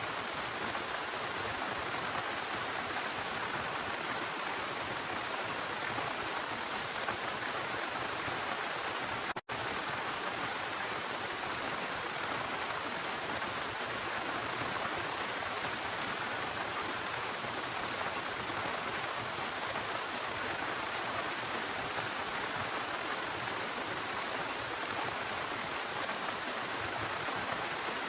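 Steady heavy rain falling, an even hiss, with a momentary dropout about nine seconds in.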